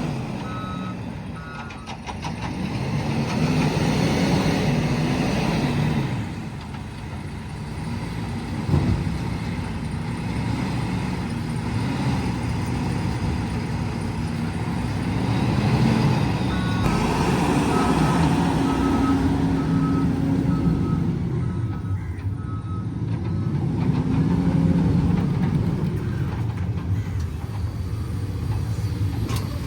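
JCB loader's diesel engine working under load, revving up and falling back in repeated cycles as it digs and lifts. A reversing alarm beeps steadily at the start and again for several seconds around the middle, and a single metallic knock sounds about a third of the way through.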